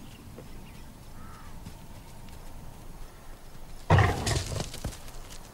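Gemsbok giving a short, loud snort of breath about four seconds in, over quiet outdoor background.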